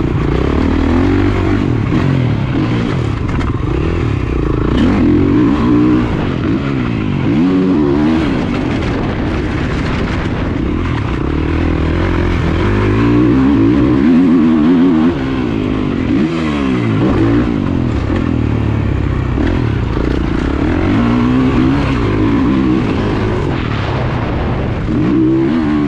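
Motocross bike's engine being ridden hard around a track, revving up and dropping back over and over as the throttle opens and closes and the gears change.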